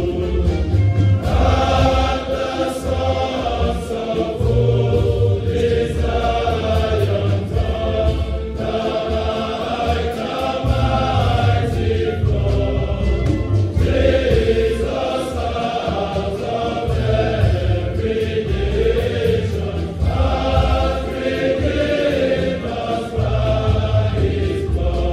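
A large all-male choir singing a hymn together, in phrases a few seconds long with short breaths between them.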